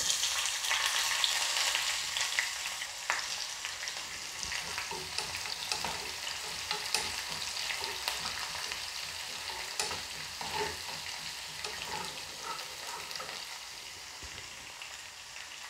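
Sliced shallots sizzling as they fry in hot coconut oil with popped mustard seeds, stirred with a wooden spoon. The sizzle is loudest as the shallots go in and slowly dies down, with scattered small clicks.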